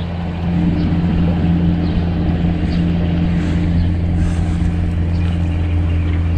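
An engine running steadily with a low, even hum that holds the same pitch throughout.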